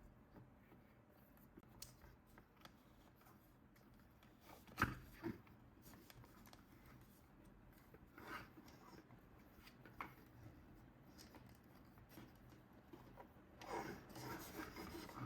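Faint rubbing and tapping of toy packaging being handled, with a light knock about five seconds in and a short stretch of rustling near the end.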